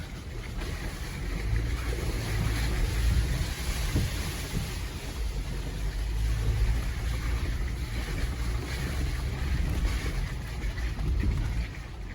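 The 2020 Jeep Gladiator Rubicon's 3.6-litre Pentastar V6 running with a steady low rumble, heard from inside the cab.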